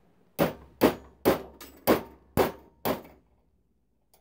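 Hammer tapping a stainless steel hinge pin into an MG F/TF door hinge: seven sharp metallic taps, about two a second, driving the pin up through the new bushes.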